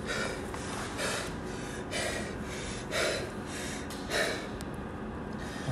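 A man breathing hard and fast after heavy barbell lifting, about one loud gasping breath a second.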